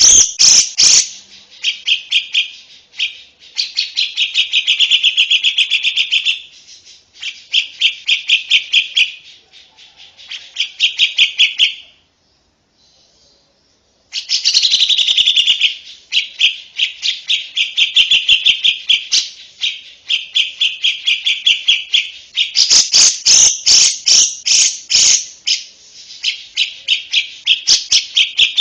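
Lovebird chattering in rapid strings of sharp, high chirps, about ten a second, in runs of a few seconds. The chatter breaks off for about two seconds a little before the middle, then goes on almost without pause.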